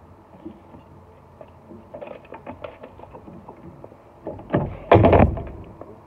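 A few light knocks, then a loud thump near the end, heaviest in the low end, dying away over about half a second.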